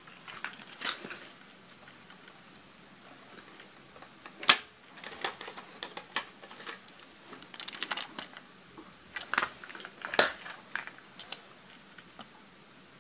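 Scattered sharp plastic clicks and knocks from a portable radio-cassette player being handled: its tape door opened and a cassette taken out. The loudest click comes about four and a half seconds in.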